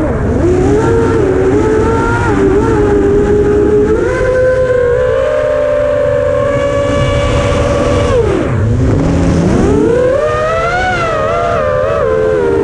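FPV drone's electric motors and propellers whining, heard from the onboard camera, with air rushing past. The pitch dips sharply right at the start and again about eight and a half seconds in as the throttle is cut, then climbs back and wavers as the throttle is punched.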